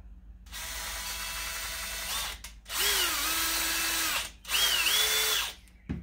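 Drill spinning a cotton swab to scrub out a carburetor with carburetor cleaner, run in three short bursts. The motor's whine drops in pitch and recovers within the later bursts.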